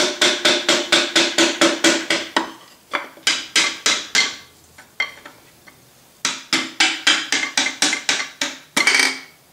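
Rapid hammer taps, about five a second, on a wooden dowel set against a connecting rod of a Mercedes M117 V8, driving the piston out of its cylinder; each blow rings in the engine block. The tapping comes in three runs with short pauses between.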